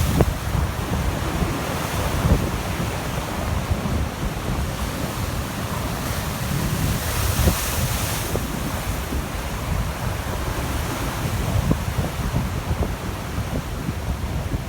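Big storm-driven sea waves breaking and washing up the beach, with wind buffeting the microphone as a constant low rumble. The surf hiss swells up about seven seconds in.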